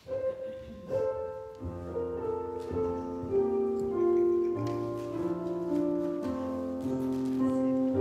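Slow keyboard music begins: a single held note at first, then sustained chords from about a second and a half in.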